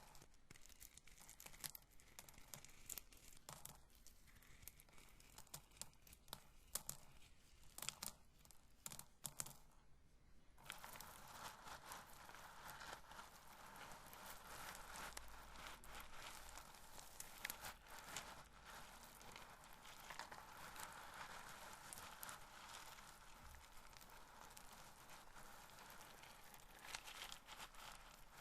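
Roasted corn kernels handled close up: scattered crisp clicks and ticks at first, then, from about ten seconds in, a continuous dry crackling rustle as the kernels are rubbed together.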